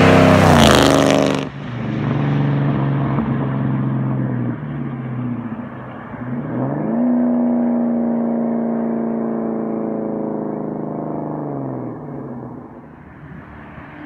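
Supercharged 4.6-litre DOHC V8 of a 2003–2004 SVT Cobra with a Whipple supercharger, driven hard past at close range with its supercharger whine. The engine note drops sharply as it goes by about a second and a half in, climbs steeply again near the middle, then slowly fades toward the end.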